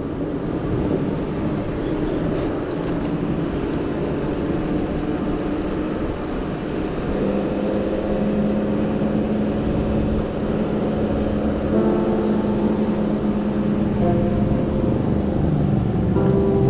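Street traffic: cars and motorbikes running and passing close by, with a steady engine hum from a nearby vehicle setting in about seven seconds in.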